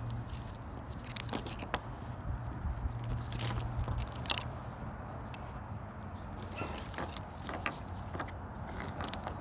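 Metal enamel pins on a fabric lanyard clinking and jangling as it is handled, in scattered short clicks.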